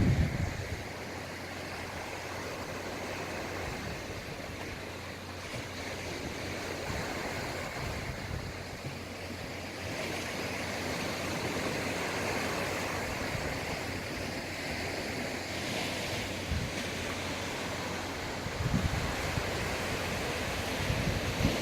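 Sea waves washing onto the shore in a steady rush that swells and eases, with wind gusting on the microphone in a few low rumbles near the start and near the end.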